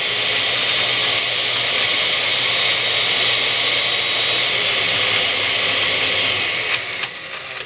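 Countertop blender running steadily, crushing ice cubes into crushed ice: a loud, even noise over a low motor hum. It stops about seven seconds in.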